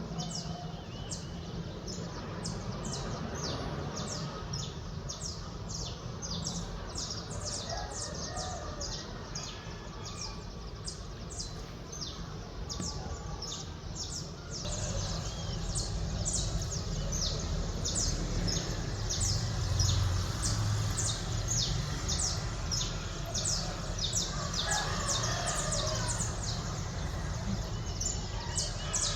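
Birds chirping rapidly and continuously at daybreak, many short high notes overlapping, over a steady low rumble of the waking city. A rooster crows faintly now and then.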